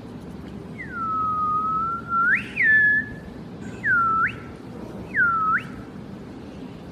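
A person whistling: four swooping whistles, the first a long dip that holds low and then rises, the next a fall, and the last two short U-shaped dips and rises.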